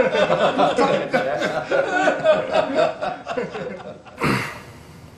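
Several people chuckling and laughing together, the laughter trailing off about four seconds in. It is followed by a short burst of noise.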